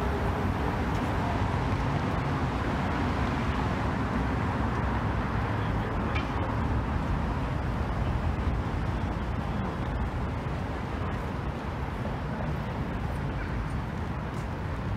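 Steady outdoor city ambience: a low, even rumble of road traffic with no single event standing out.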